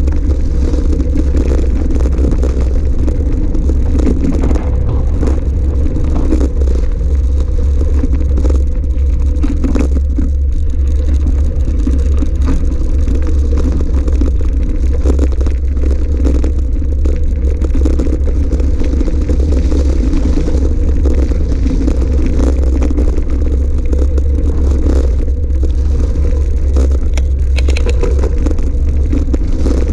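Electric mountain bike riding over a loose gravel track: tyres crunching on the stones and the bike clattering, under a steady low rumble of wind on the camera microphone.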